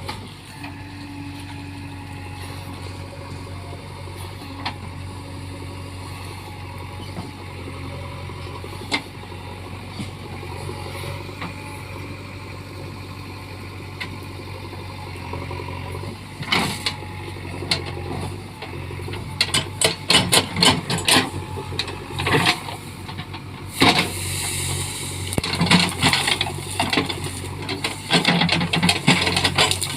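JCB backhoe loader's diesel engine running steadily. From about halfway through comes a growing run of sharp cracks and knocks, dense over the last third, as brush and branches are worked.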